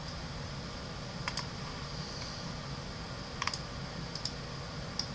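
A handful of sharp computer clicks, a pair a little over a second in and a few more later, over a steady low room hum.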